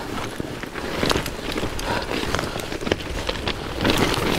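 Fat-bike tyres rolling through wet, crunchy snow: a dense crackle of many small clicks over a low rumble.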